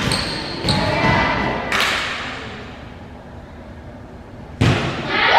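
Volleyball being struck during a rally, with three sharp hits ringing out in a large gym hall: two about a second apart, then a pause, then a louder hit near the end. Players' voices are heard around the hits.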